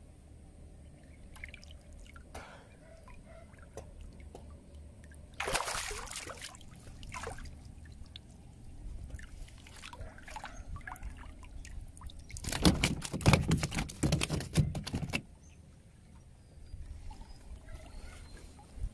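Water splashing and sloshing in two bursts, a short one about five seconds in and a longer, louder one a few seconds later, with small drips and trickles between.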